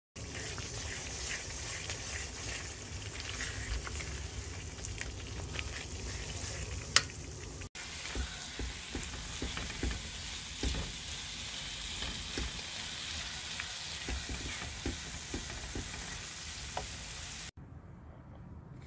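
Semolina halwa sizzling in ghee in a nonstick pan while a silicone spatula stirs and presses it, with scattered soft knocks and scrapes and one sharp click about seven seconds in. The sound cuts out briefly after about eight seconds and drops much quieter near the end.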